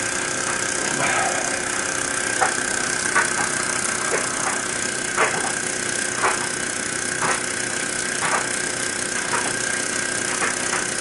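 Microcosm miniature live-steam engine driving a small generator, running steadily with a constant hiss and whir and a short click about once a second. It runs well while being run in.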